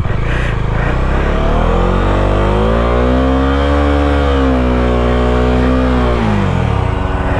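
Bajaj Dominar 250's single-cylinder engine revving as the motorcycle rides through a muddy, waterlogged track. The engine note climbs for about two seconds, holds, then eases back down near the end.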